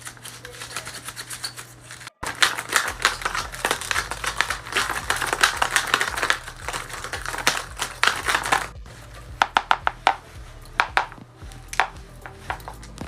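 Paper being handled: a dense run of crisp clicks and rustles for about six seconds, then sparser single clicks, over a faint low hum.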